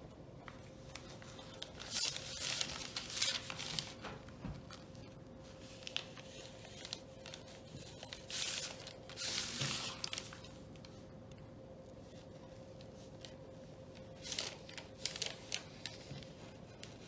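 X-Acto hobby knife blade scraping and slicing through a printed sheet glued onto a metal license plate as it trims around the plate's edges. The cutting comes in several runs of short scratchy strokes with pauses between.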